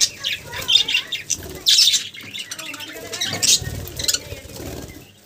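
Budgerigar bathing: wings fluttering in irregular bursts, with a few short chirps and squawks between them.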